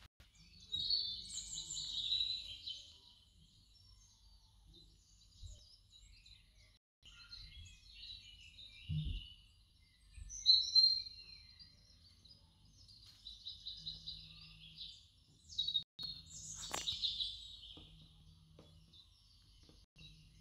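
Birds chirping and singing in short high phrases, on and off, over a faint low hum.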